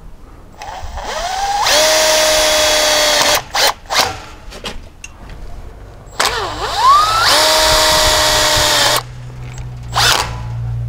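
Cordless impact driver driving self-drilling, self-tapping screws for a gate latch, twice: each time the motor whine rises in pitch, holds steady for a couple of seconds and cuts off, followed by a few short knocks.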